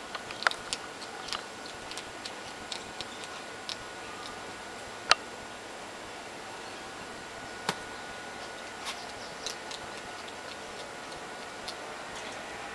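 Irregular sharp clicks and ticks, about a dozen scattered through, two louder ones about five and almost eight seconds in, over a steady hiss with a faint steady high tone.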